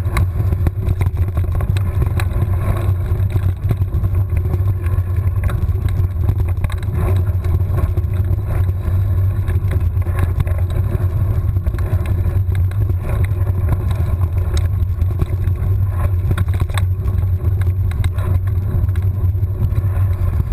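Mountain bike rolling fast along a dirt singletrack, heard through a handlebar-mounted camera: a steady low rumble of wind buffeting and tyre noise, with frequent small knocks and rattles from the trail bumps.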